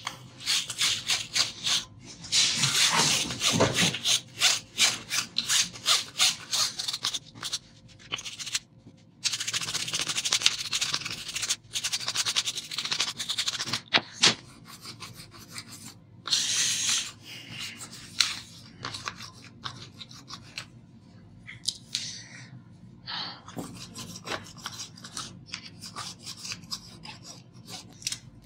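Small bristle brush scrubbing a laptop motherboard, dusty and wet with thinner, in quick back-and-forth strokes. The strokes come in bouts of a few seconds with short pauses, and grow fainter and sparser near the end.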